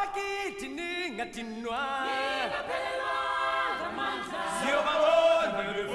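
Stage-musical singing: several voices singing together without instruments, holding long notes and sliding between pitches.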